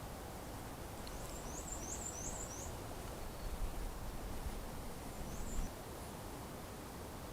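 A small songbird giving short, high chirps: a quick run of four or five about a second in, then one more a few seconds later, over a steady low outdoor rumble.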